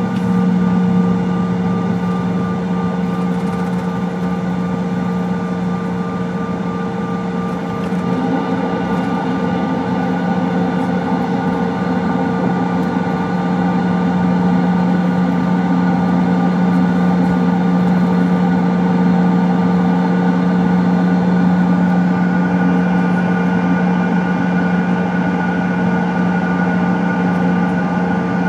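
Cabin noise inside a Bombardier CRJ-200 rolling on the ground after touchdown. Its two rear-mounted General Electric CF34 turbofans give a steady hum and whine of several held tones over an even rush of air.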